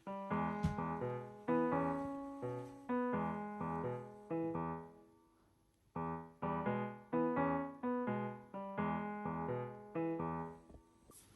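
Background piano music: a slow melody of struck notes and chords, each dying away, with a short pause about five seconds in before it picks up again.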